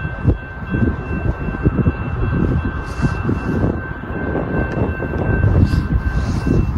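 Wind buffeting the microphone in uneven gusts, with the horn of a distant approaching Norfolk Southern freight train sounding faintly and steadily behind it.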